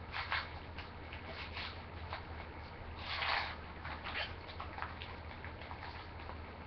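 Foil trading-card pack wrapper crinkling and tearing as it is opened by hand, in short irregular rustles with a longer, louder burst of crinkling about three seconds in. A steady low hum runs underneath.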